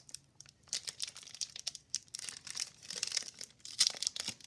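Plastic wrapper of a hockey card pack crinkling in irregular crackly bursts as hands tear it open.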